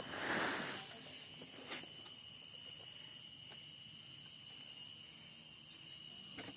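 Insects, crickets by the sound of it, chirping in a steady high-pitched trill throughout. A brief rustle, the loudest moment, comes near the start, and one click follows a second later.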